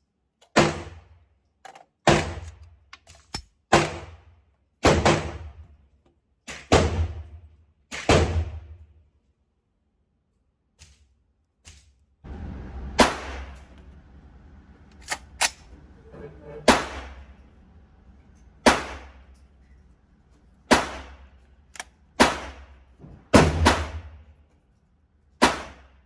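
Semi-automatic gunfire from a 7.62x39 AR-15 pistol: a string of single shots about one to two seconds apart, each with a short echo. There is a pause of about three seconds midway, with only a couple of faint clicks.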